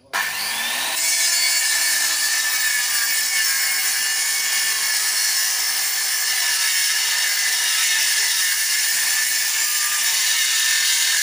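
Handheld electric circular saw switched on and cutting lengthwise through a wooden plank, running steadily and loudly.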